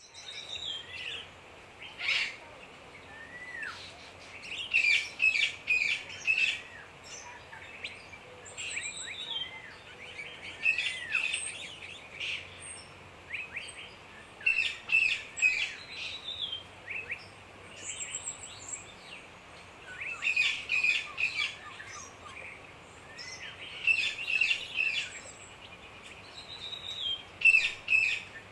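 Rainforest birds chirping and calling. Clusters of rapid chirps come every three to four seconds, with rising and falling whistles between them, over a faint steady background ambience.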